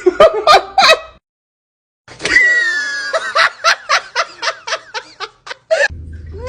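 Hearty human laughter in rhythmic bursts, about three a second, fading away. It is broken by a short dead-silent gap about a second in.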